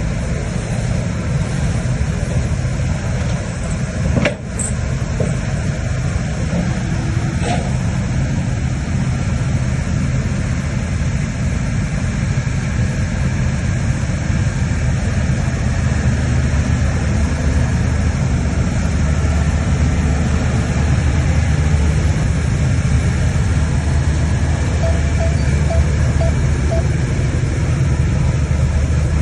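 Shantui bulldozer's diesel engine running steadily, with a sharp knock about four seconds in.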